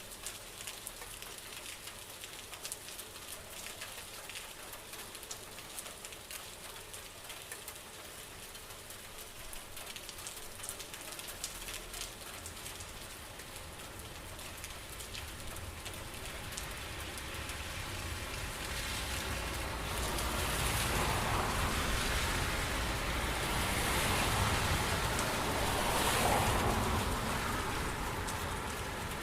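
Rain falling with individual drops audible. From about halfway it grows louder and fuller, with a low rumble underneath, and is strongest near the end.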